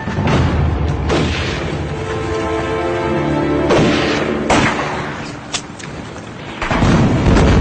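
Background music with several gunshots and booms cutting through it. The loudest, a deep boom, comes near the end.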